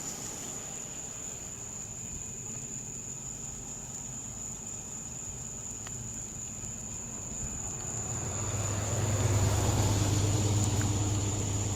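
A vehicle passing by, growing louder from about eight seconds in and easing off near the end, over a steady high-pitched tone.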